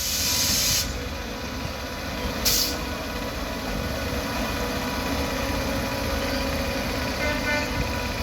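WAP-7 electric locomotive running light: a steady rumble with a faint even hum, broken by two short hisses of air, one at the start and one about two and a half seconds in.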